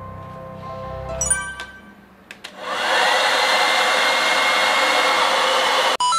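Handheld electric hair dryer switched on: its motor whine rises as it spins up, then it blows steadily and loudly for about three seconds before cutting off suddenly.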